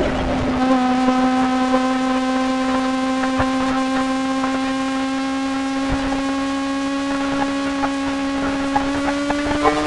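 Kawasaki ZX-25R's 250 cc inline-four engine giving a high-pitched wasp-like buzz while riding at nearly constant revs. The pitch climbs near the end as the bike accelerates.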